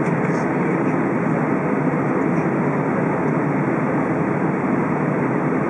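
Steady cabin noise inside an Airbus A320 airliner: an even rumble and rush from the engines and airflow heard through the fuselage, with no change in level.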